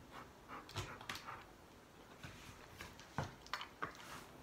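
A dog shifting on a plastic step stool: a few faint scattered clicks and small knocks, the clearest about a second in and three to four seconds in.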